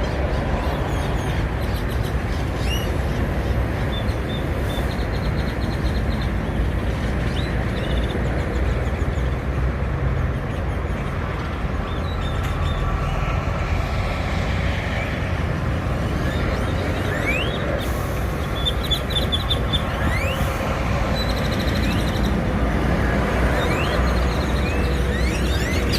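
Small birds chirping and calling, short rising notes and quick high trills scattered throughout, over a steady low rumble of engine and traffic noise.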